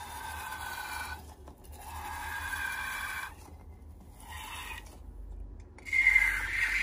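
Liquid slime being squeezed out through the cut-open neck of a rubber balloon, the rubber squeaking in pitched, squelching bursts. Four squeezes, the last and loudest about six seconds in.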